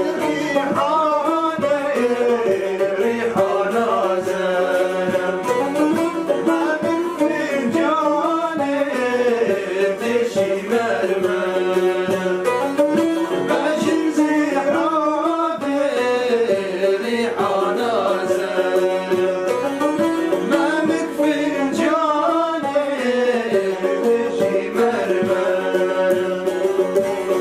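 Kurdish folk song: male voices singing over a strummed long-necked saz (bağlama) and a plucked banjo-like instrument.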